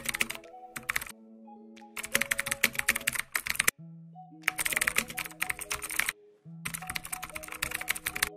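Computer keyboard typing sound effect in four bursts of rapid key clicks with short pauses between them, over background music with held notes.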